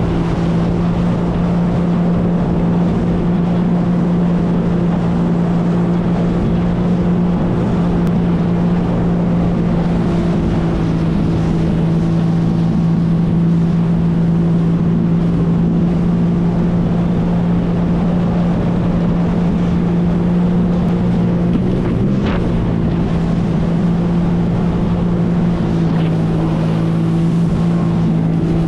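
Jet ski engine and jet pump running at a steady cruising speed: a loud, even drone at one pitch, with water rushing past and wind on the microphone.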